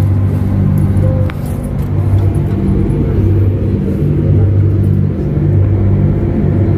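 Ferry engines running with a loud, steady low drone that swells and eases every second or so, as the boat moves off from the pier.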